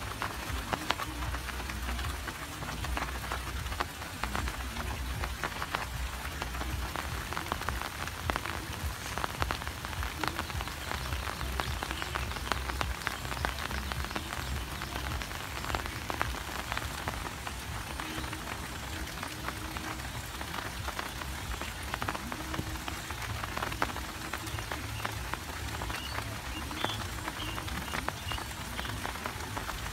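Steady rain falling on a paddy of rice plants: a dense patter of drops on the leaves, with a low rumble underneath.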